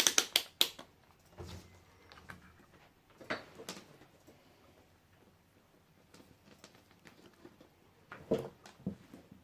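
Handling noises while a multimeter is set up to measure salvaged battery cells: a quick run of sharp clicks at the start, then scattered light taps and knocks, the last pair near the end.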